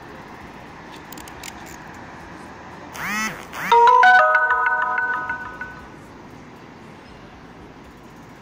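A brief electronic jingle: a quick run of rising chirps about three seconds in, then a held chime-like chord that fades away over about two seconds. Steady road traffic hums underneath.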